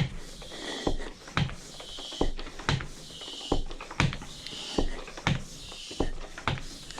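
Hand tire pump inflating an e-bike's rear inner tube: a steady run of about nine strokes, each a hiss of air followed by a sharp clack, roughly one stroke a second or a little faster.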